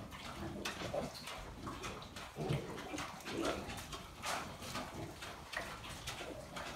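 Pedigree Welsh sow and her piglets, a few hours old, grunting softly, with scattered short rustles in the straw bedding.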